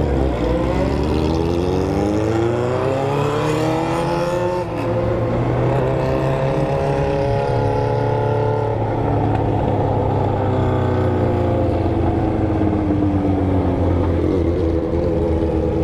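Four-cylinder sport motorcycle with a straight-through 4-into-1 exhaust revving out. Its pitch climbs for about four and a half seconds, drops sharply, holds steady, then falls away slowly. A steady low drone of other engines runs underneath.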